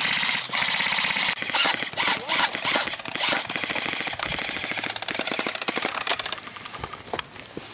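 Airsoft guns firing rapid full-auto bursts, loudest over the first three seconds or so, then a quieter, faster run of shots.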